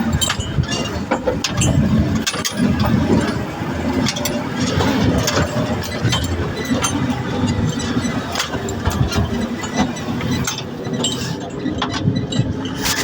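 Off-road vehicle engine running steadily on a rough track, with frequent short knocks and rattles.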